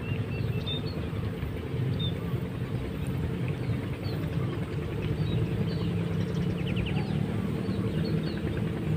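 A steady low mechanical hum, like a distant engine running, with faint high chirps scattered through it and a short rapid trill about seven seconds in.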